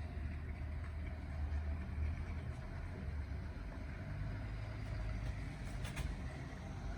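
Cars driving around a driving-school practice course: a steady low engine and road rumble, with one brief sharp tick a little before the end.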